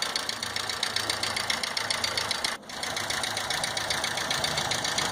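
VW EA111 1.0 8-valve engine idling with a rapid, even tapping from the cylinder head, like a bled-down hydraulic lifter. The mechanic finds the cause is worn, deeply scored camshaft bearing seats in the head and bearing caps, not the lifters. The sound dips briefly a little past halfway.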